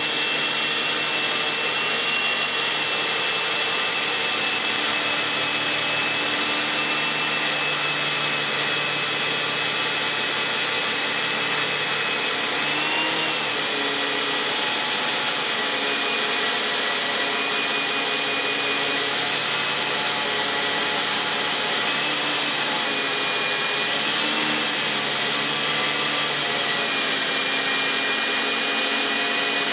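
An electric chainsaw mortiser runs continuously while its chain cuts a mortise into a large cedar timber. It makes a loud, steady machine sound whose pitch wavers briefly twice.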